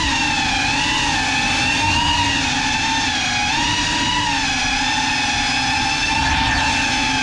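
GEPRC CineLog35 cinewhoop's four brushless motors and ducted propellers whining, the pitch wavering up and down with throttle changes, heard close through the GoPro mounted on the drone.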